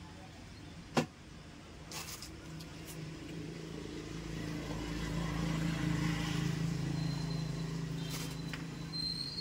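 A motor vehicle's engine running past, a low hum that swells to a peak about six seconds in and then eases off. A sharp click sounds about a second in.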